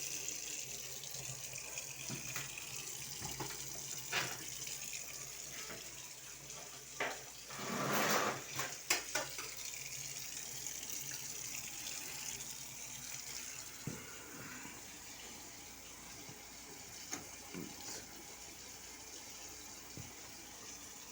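Water running from a tap on newly connected supply pipework, a steady hiss with a louder rush of water about eight seconds in and a few light knocks. The water is being run to test the new pipe joints for leaks.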